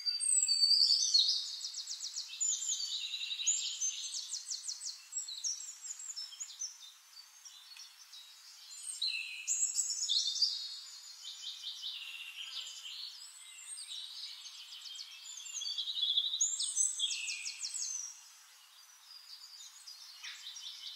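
Songbird singing in three long bouts of fast, high trills and chirps, with quieter chirping in between.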